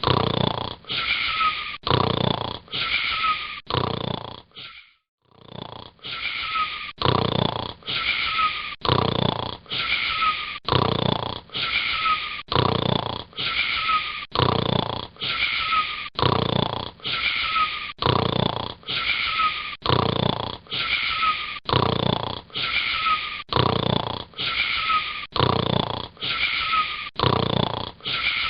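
A boy snoring in a quick, regular rhythm of about one breath a second, each breath carrying a wheezy, slightly falling whistle. The snoring breaks off briefly about five seconds in, then resumes.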